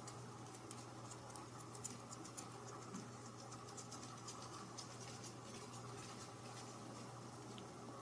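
Faint, quick scratching and light ticking as a kitten plays with a pompom wand toy on a fabric sofa, thickest in the first five seconds, over a steady low hum.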